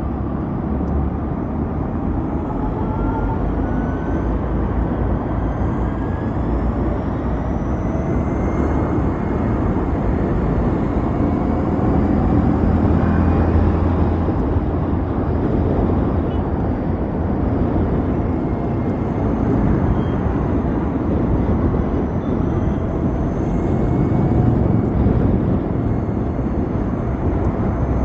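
Ride on an Ather 450X electric scooter: a steady low rumble of wind and road noise, with a faint whine that rises in pitch several times as it gathers speed.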